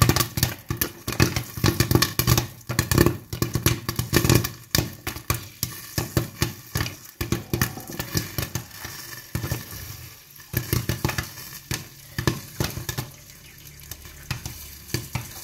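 Popcorn kernels popping in a glass-lidded pan of hot ghee and sugar: a dense run of sharp pops that thins out after about nine seconds. The slowing pops are the sign that the batch is nearly done.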